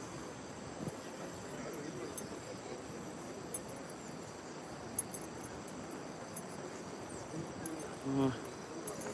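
Insects chirring steadily in the surrounding pine trees over a low outdoor background hiss, with a few faint clicks and a brief voice near the end.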